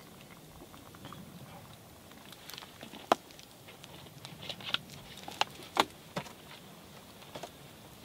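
Log campfire crackling over glowing embers, with a few sharp pops between about three and six seconds in.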